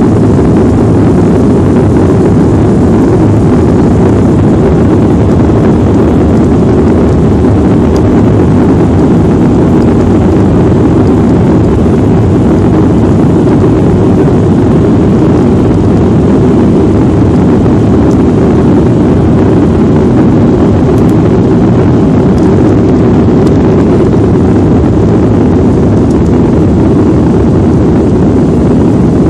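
Jet airliner taking off under high thrust: a loud, steady low roar of engines and rushing air that holds without change.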